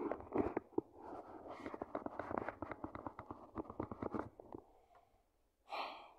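Handling noise from a phone being moved about in the hand: fingers and the plush toy's fabric rubbing against the phone, with many quick scratchy clicks and knocks for the first four seconds or so. A short breathy puff is heard near the end.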